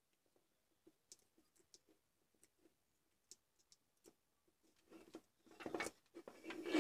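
Faint, scattered clicks of a soldering iron tip working on the solder joints of a small circuit board during desoldering. From about five seconds in come louder rustles and knocks as the board is pulled free of the transformer and handled.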